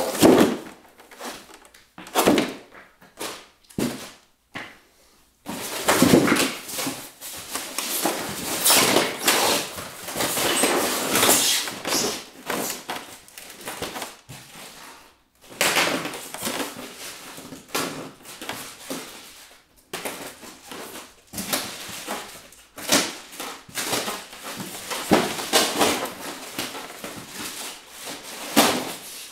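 Styrofoam packing blocks and plastic wrap handled and rubbed while a metal tube is worked free: a few sharp knocks in the first seconds, then almost continuous rustling and scraping with a brief pause about halfway.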